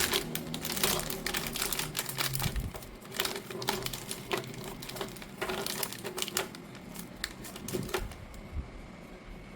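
Cookie packaging being handled: quick crackling clicks and crinkles of the wrapper, dense at first, then sparser, stopping about eight seconds in.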